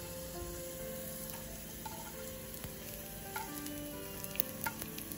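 Sliced garlic frying in shallow oil in a tilted non-stick pan, sizzling steadily as the browned slices are drained. A few light clicks of metal tongs against the pan in the second half as the slices are lifted out.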